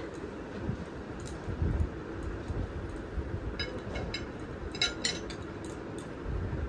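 A metal spoon clinking against a glass plate a handful of times as lentil paste is scooped and spread onto leaves, the clearest clinks about four and five seconds in, over a low steady background hum.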